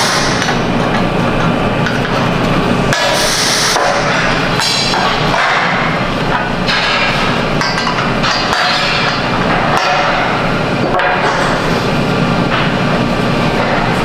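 Hammer knocking on a steel pipe handrail section a few times, spread out, over a steady loud background din.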